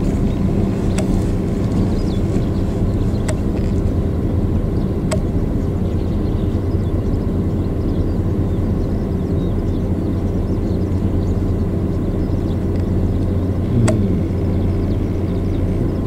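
A vehicle engine running at a steady idle, with four faint clicks spread through it.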